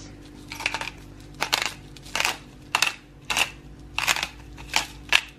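Hand-twisted salt grinder cracking Himalayan pink salt crystals, a series of short crunches a little over half a second apart as it is turned.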